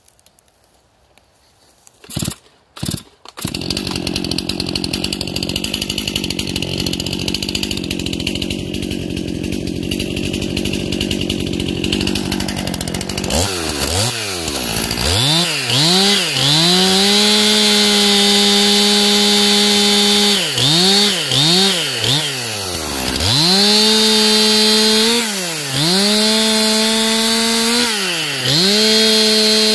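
STIHL MS 261 C-M two-stroke chainsaw: about two seconds in it fires in a few short bursts, catches and idles steadily for about ten seconds. It is then revved and run at high speed through several cuts in a Tatar maple branch, the throttle let off and blipped between cuts.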